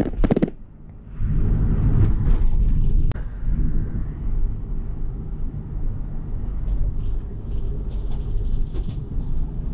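Steady low rumble of a moving vehicle, engine and road noise heard from inside it. A short louder burst opens it, then a brief dip before the rumble resumes about a second in.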